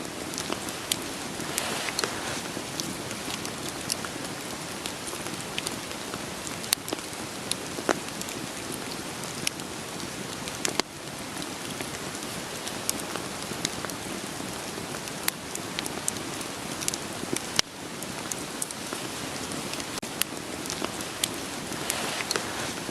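Steady rain falling, with irregular sharp crackles and pops from burning firewood scattered through it.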